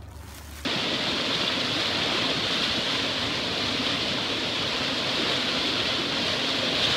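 Whitewater rapids rushing: a steady, loud hiss of churning river water that cuts in suddenly under a second in.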